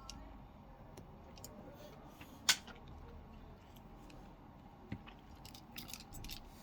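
A few faint clicks and taps from small phone parts and tools being handled at a repair bench. One sharper click comes about two and a half seconds in, and a small cluster of clicks comes near the end.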